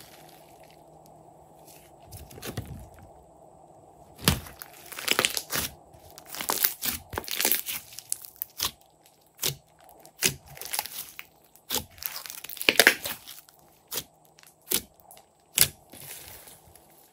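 Glossy slime being stretched, pressed and squeezed by hand, giving irregular sticky pops and clicks. It is quiet for the first few seconds, then the pops come thick and fast from about four seconds in.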